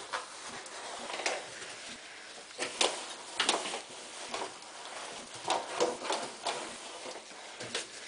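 Paper towel in a rubber-gloved hand wiping the inside walls of a microwave: a series of short rubbing strokes, the loudest few in the middle.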